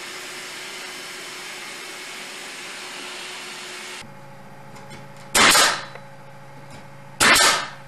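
A steady hiss, then, after a cut, a pneumatic nail gun firing twice, about two seconds apart, each shot a short sharp bang, as aspen tongue-and-groove boards are nailed to the wall.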